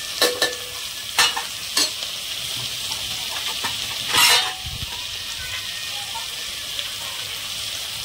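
Chopped vegetables sizzling in hot oil in a pressure cooker while being stirred, a steady frying hiss. A few sharp clicks come in the first two seconds, and a louder burst of sizzling about four seconds in.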